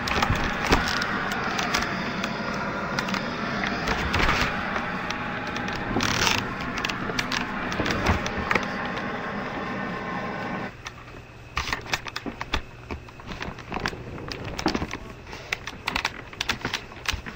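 Hiss of a television tuned to static, cut off abruptly about ten and a half seconds in as the set is muted. Irregular clicks and knocks of handling go on after.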